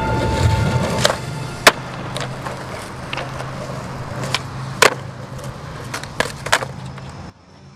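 Skateboard wheels rolling on concrete, with a string of sharp clacks from the board hitting the ground, about one every second or so. It cuts off suddenly near the end.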